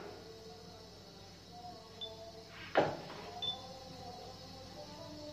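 Faint background music, with one sharp knock about three seconds in as the plastic batter bowl is put down, and a couple of small ticks around it.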